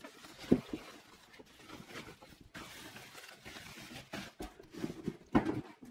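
Thin plastic bag rustling and crinkling as it is pulled off a digital keyboard, with handling knocks about half a second in and a couple more near the end.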